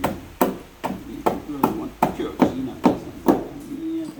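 Wood being chopped into pieces for kindling the barbecue coals: a steady series of sharp chopping strikes, about two and a half a second.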